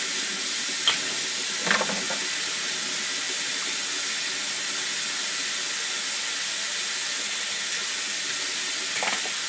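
Tap water running steadily into a kitchen sink during hand dishwashing, with a few short clinks of dishes about a second in, near two seconds and near the end.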